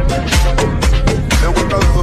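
Background music: a song with a steady heavy beat.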